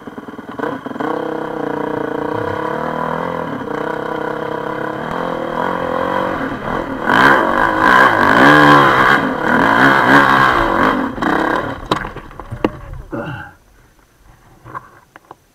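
Honda CRF450X single-cylinder four-stroke dirt bike engine pulling steadily, then revving hard and unevenly up and down for several seconds as it climbs a steep sandy hill. About thirteen seconds in the engine dies away and cuts out, leaving a few knocks.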